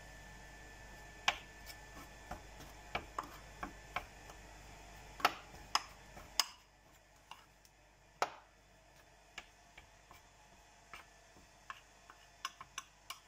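A metal spoon stirring flour-and-water dough in a ceramic bowl, clinking against the bowl's side in irregular clicks.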